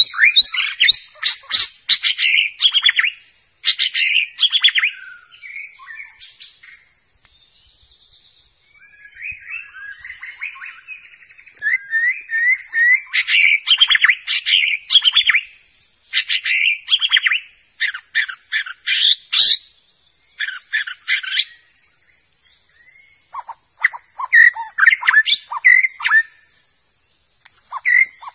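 White-rumped shama (murai batu) singing: bursts of rapid, varied whistles and chattering phrases, with short pauses between bursts. A faint steady high-pitched tone runs behind the song.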